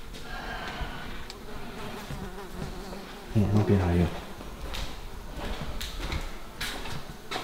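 Flies and mosquitoes buzzing close by, with a few sharp light knocks later on. A short low spoken phrase about halfway through is the loudest sound.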